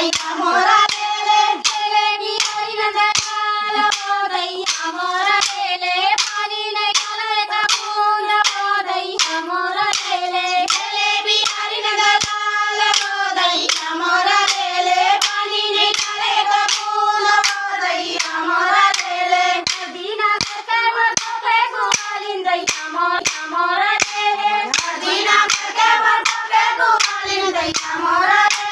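A group of women singing a Chhattisgarhi Sua folk song in unison, with sharp hand claps on a steady beat keeping time.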